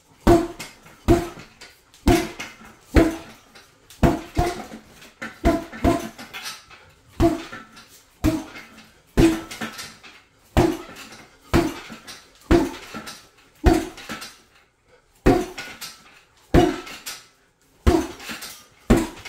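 Punches landing on a hanging heavy bag, about one a second with some quick doubles, each hit a sharp thud with a short metallic rattle from the bag's steel stand and hanging hardware.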